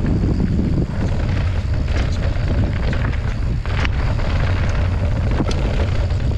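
Loud, steady low rumble with wind buffeting the microphone, and a couple of faint ticks about four and five and a half seconds in.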